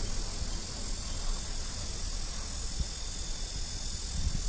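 Steady high hiss over a low rumble, with a couple of soft bumps from the camera being handled close to a kitten's paw.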